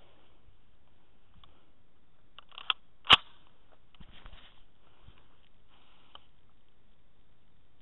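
SKS rifle being handled: a light click, then a sharper, louder clack about half a second later, followed by soft rustling and small knocks.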